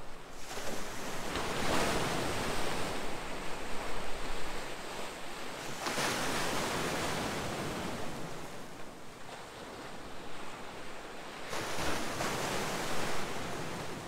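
Sea waves breaking and washing up against a shore of rock boulders, the surf swelling and fading in three surges.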